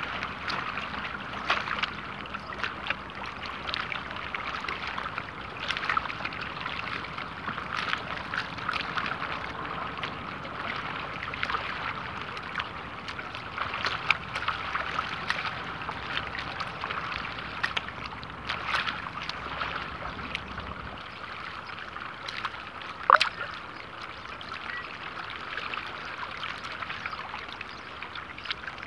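Small waves lapping and slapping close by: a steady watery wash broken by many little splashes and clicks. One sharp, louder click about three-quarters of the way through.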